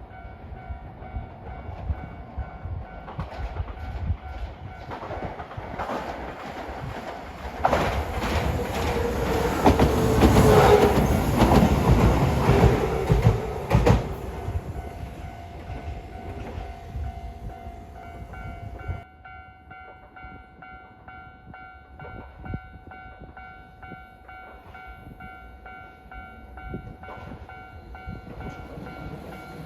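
A train passing close by, its wheels clattering over the rail joints: it grows louder over several seconds, is loudest for several seconds around the middle, then fades and drops away sharply. A faint steady tone runs underneath.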